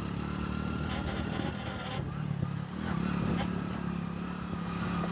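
Hero Splendor Plus motorcycle running, with a faint thin squeal of metal rubbing from its rear brake as the brake is applied, dropping out for a moment about two seconds in. The noise is the sign of the rear brake shoes rubbing metal in the drum.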